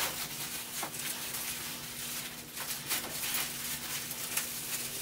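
Plastic bubble wrap crinkling and rustling in irregular small crackles as it is handled and held against window glass, over a faint steady hum.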